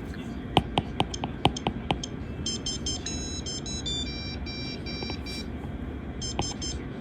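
About eight quick clicks or taps, then a string of short electronic beeps that step up and down in pitch, and a few more beeps near the end.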